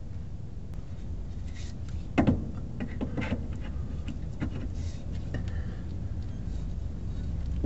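Handling noises of a new gas shock absorber being held up and lined up with its mount under a motorhome: scattered rubbing and light clicks, with one sharper knock about two seconds in.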